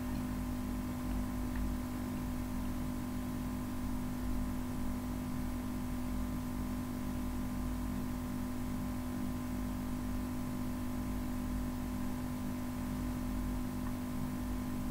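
Steady background hum with a low rumble and faint hiss, unchanging throughout: the recording microphone's room tone, with no other sound.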